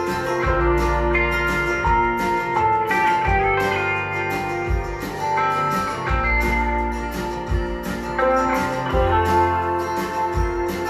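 Guitar music with bass and a regular drum beat, played through a pair of JVC EX-P1 wood-cone bookshelf speakers and picked up by a microphone in the room.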